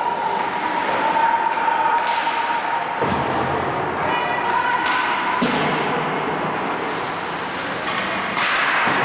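Ice hockey game sounds in a rink: several sharp knocks over a steady background of voices. A steady high hum cuts off about five seconds in.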